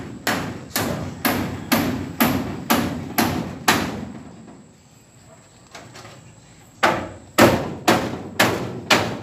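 Hammer nailing a corrugated galvanized iron sheet to a wooden fence frame: an even run of strikes about two a second, each ringing briefly, then a pause of about three seconds and another run of strikes.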